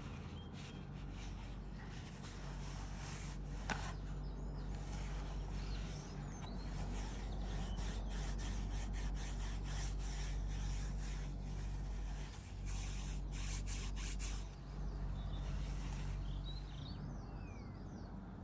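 Cloth-gloved hands rubbing and handling a cardboard perfume box, with a few light taps, over a steady low hum.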